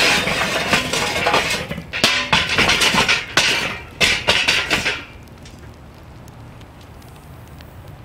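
Hot charcoal briquettes tumbling out of a metal chimney starter onto the charcoal grate of a kettle grill: a dense clattering rush that breaks into separate knocks and clinks as the last pieces are shaken out, stopping about five seconds in.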